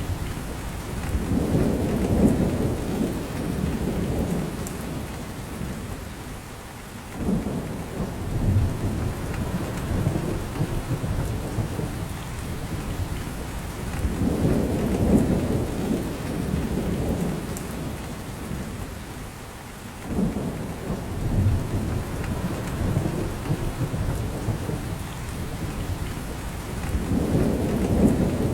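Steady rain falling in a spruce forest, with drops coming down from the branches. Under it is a low rumble that swells and eases about every thirteen seconds.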